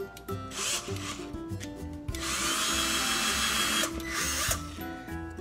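Cordless drill boring pilot holes into a pine tabletop: a short burst about half a second in, a longer run of nearly two seconds with a steady motor whine, and a brief burst near the end. Background music plays throughout.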